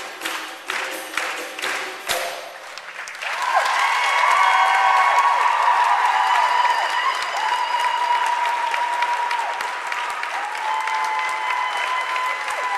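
Belly dance music with rhythmic drum beats ends about three seconds in. Audience applause then breaks out, with sustained high-pitched cheering over it.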